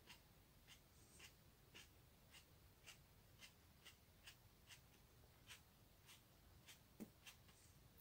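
Near silence with faint, crisp mouth clicks a little under twice a second: a man quietly chewing a bite of raw Carolina Reaper Chocolate chili pepper with his mouth closed.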